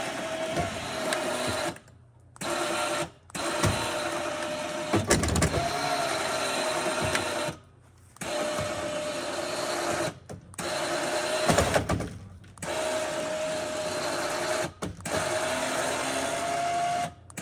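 Electric winch motor whining as it hauls a cable rolling a heavy log, stopped and restarted about seven times, its pitch wavering under load. A few heavier knocks come about five seconds in and again near the middle.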